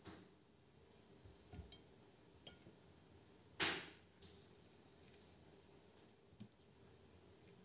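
Faint clinks and taps of a metal fork against a ceramic dish as hollowed round zucchini shells are tipped to drain, with one louder, sharper knock a little past halfway.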